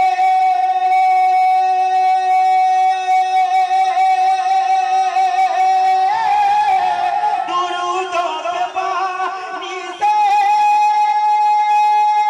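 A man's voice singing a naat unaccompanied, holding one long steady note for about six seconds, then wavering through an ornamented run, and from about ten seconds in holding a second, slightly higher long note.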